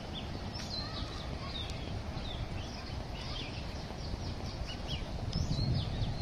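Several small birds chirping and calling in short, scattered notes over a steady low background rumble.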